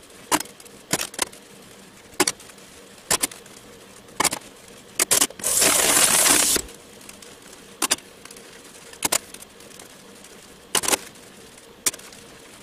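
Dishes being washed by hand in a stainless steel sink. Scattered sharp clinks and knocks of dishes and utensils against each other and the sink, with about a second of running tap water just past the middle.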